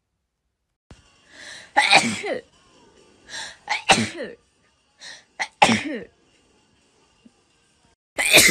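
A person sneezing three times, about two seconds apart. Each sneeze comes as a short breath in, then a sharp burst whose pitch falls away. A fourth sneeze begins right at the end.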